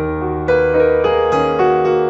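Slow, gentle background piano music: a melody of single sustained notes over held chords.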